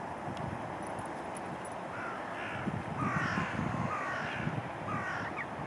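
Crow cawing, a quick run of repeated calls starting about two seconds in and ending just before the end.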